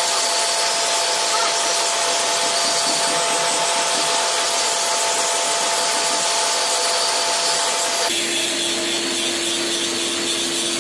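Steady, loud hissing rush of workshop noise with faint steady tones in it, changing character abruptly about eight seconds in.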